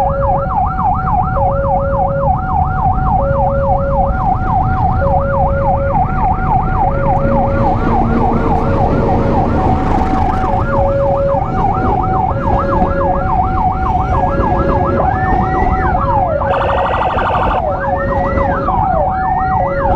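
Emergency sirens sounding together: a fast yelp sweeping up and down about three times a second over a two-tone hi-lo siren alternating about once a second. From about 15 s the yelp slows into longer wail sweeps, and a brief buzzing horn blast sounds around 17 s, over a steady rumble of engines and traffic.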